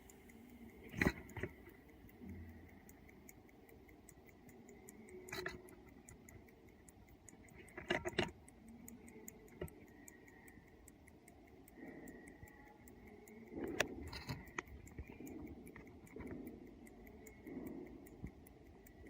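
Slava mechanical alarm clock ticking fast and evenly, with a few louder knocks and clicks as it is handled.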